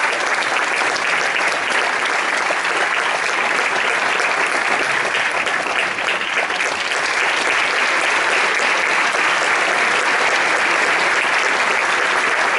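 Theatre audience applauding steadily, a dense, even clapping.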